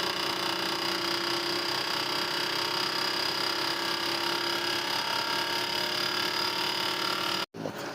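Fuel injector test bench running with the Alfa Romeo 2.0 JTS injectors firing rapidly into the measuring tubes. It makes a steady, even mechanical buzz that stops abruptly about seven and a half seconds in.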